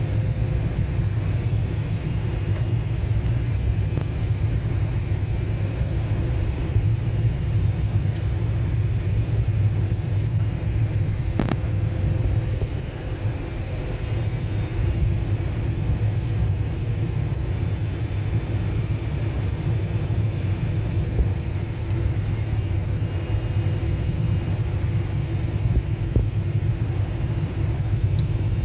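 Emirates Boeing 777 airliner in flight, heard as a steady, deep cabin rumble of engines and airflow with a few faint steady whining tones over it. There is one faint click about eleven seconds in.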